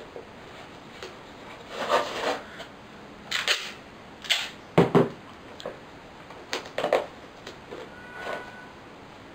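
Black gaffer tape being pulled and torn off in strips and pressed onto the corners of a cardboard box, a series of short ripping and rustling noises of uneven length, the loudest a pair about five seconds in.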